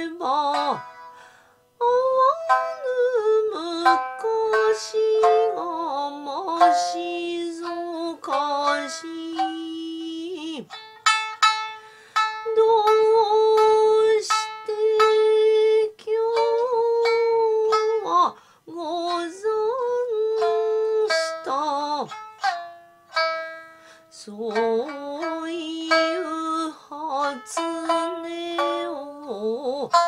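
Kouta sung by a woman to her own shamisen accompaniment, in the high eight-hon (hachi-hon) key. Her voice holds long, wavering notes over sparse plucked shamisen notes.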